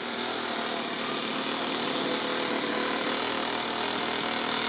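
Toyan FS-S100 single-cylinder four-stroke overhead-cam nitro model engine idling steadily.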